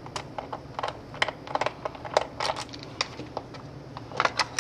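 Irregular small clicks and taps of a small screwdriver working the screw of a Toshiba Satellite C655 laptop's plastic hard-drive bay cover, with a quicker cluster of clicks near the end.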